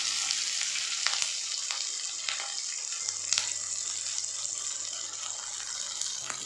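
Sliced onions sizzling in hot oil in a nonstick pan, a steady hiss with a few clicks of a wooden spoon against the pan in the first half.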